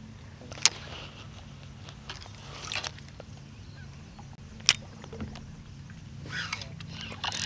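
A faint, steady low hum, with two sharp clicks about four seconds apart and a few small knocks and rustles.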